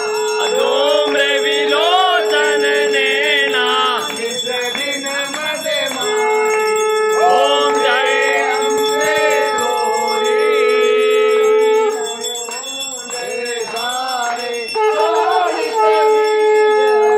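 Temple aarti: bells ringing, with voices singing. A steady held note sounds underneath for several seconds at a time, breaking off and starting again three times.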